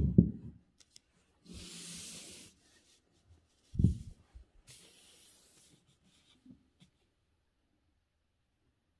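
Calligraphy practice paper being handled and slid across the desk: soft thumps, the loudest just after the start and another at about four seconds, and two brief rubbing swishes of paper dragging, each about a second long.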